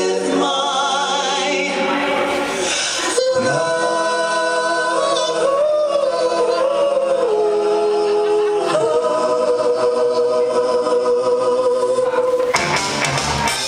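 Voices singing a slow gospel-style number in harmony, with long held notes and vibrato. Near the end, a band backing with guitar and drums comes in.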